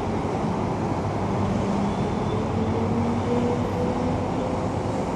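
Steady vehicle noise: a motor running, its note rising slowly in pitch as it gathers speed.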